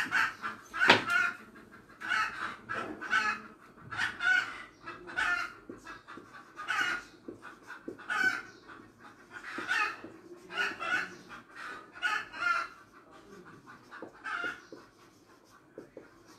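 Chickens clucking in the background, a short call about every second, with one sharp knock about a second in.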